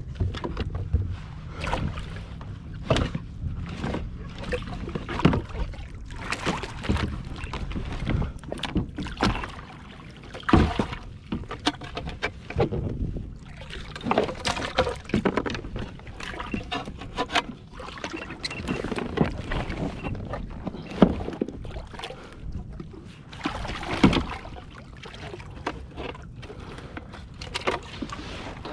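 Water slapping and splashing against the hull of a Hobie Revolution 13 fishing kayak on the ocean, with irregular sharp knocks and splashes over a steady low wash.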